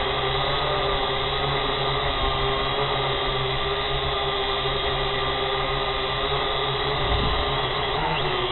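Drone's motors and propellers whining steadily in flight, with a brief dip in pitch near the end.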